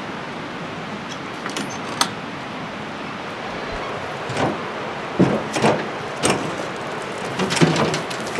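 Knocks, clicks and short creaks of a wooden barn's doors being opened and handled: two sharp clicks early, then a string of louder knocks from about halfway on, over a steady rushing background.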